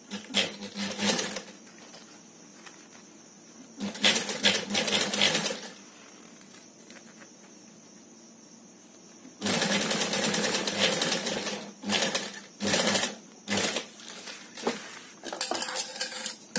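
Industrial flatbed sewing machine stitching a straight seam through layered handbag panels, run in stop-start bursts: a few longer runs, then several short ones near the end.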